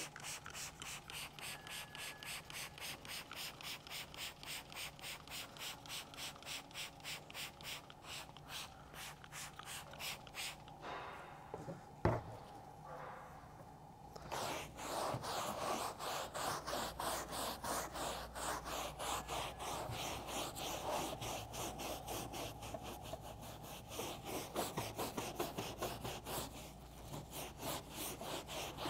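Trigger spray bottle spritzing carpet cleaner onto a car floor mat in quick repeated pumps, about three a second. A sharp knock comes about halfway, then a stiff hand brush scrubs the carpet pile in rapid back-and-forth strokes.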